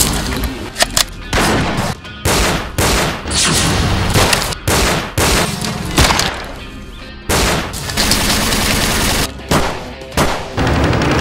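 Gunfire in a shootout: a dozen or more gunshots at irregular intervals, some in quick pairs, with background music under them.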